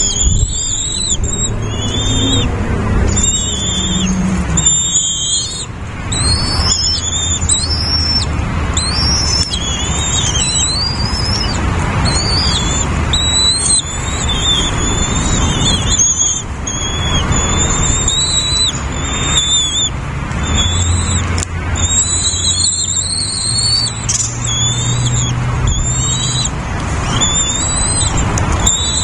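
Nestling birds begging with a steady run of short, high, rising cheeps, one or two a second, over a steady low rumble.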